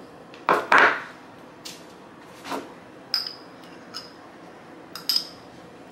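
A spoon tapping and clinking against a small glass jar while minced garlic is scooped out and spread onto raw beef ribs: about seven separate taps, the loudest just under a second in, the later ones with a brief high ring.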